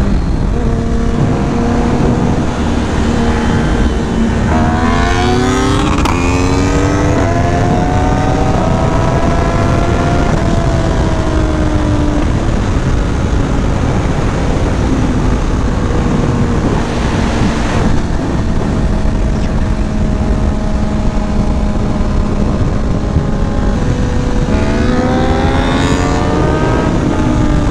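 Inline-four sport motorcycle engine pulling hard under the helmet microphone's heavy wind rush. Its pitch climbs for several seconds, falls away, holds steady, and climbs again near the end.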